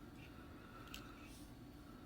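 Near silence: room tone, with one faint short click about halfway through.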